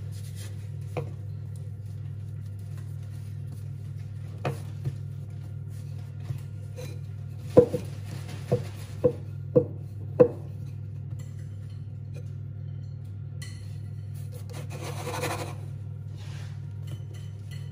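Wooden rolling pin rolling scone dough on a floured wooden board: a quick run of knocks as the pin bumps the board, and soft rubbing and scraping of wood and dough.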